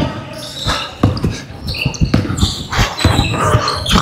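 Several basketballs bouncing irregularly on a hardwood court floor, mixed with short high squeaks of sneakers, echoing in a large sports hall.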